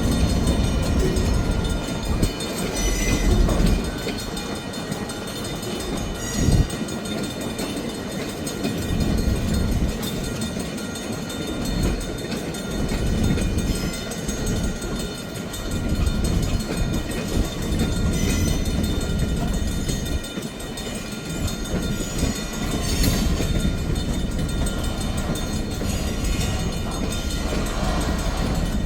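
Train rumbling along the rails, with a few sharp clanks standing out from the steady noise.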